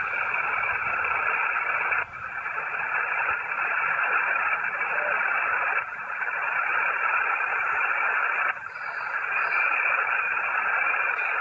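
HF transceiver's speaker hissing with band static on an empty frequency, a steady noise held to the narrow voice band. It drops out briefly three times.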